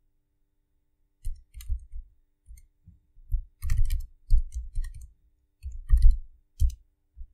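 Computer keyboard typing: an irregular run of keystroke clicks that starts about a second in.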